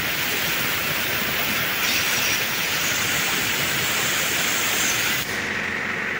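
Compressed air hissing steadily around the air reservoir tank of an Ashok Leyland truck's air brake system. The hiss shifts higher in tone about two seconds in and eases a little after five seconds.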